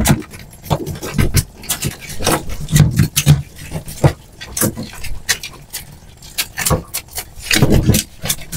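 Irregular clicks, knocks and rustles of a catch of giant freshwater prawns being handled and sorted by hand, shells knocking against each other and the container.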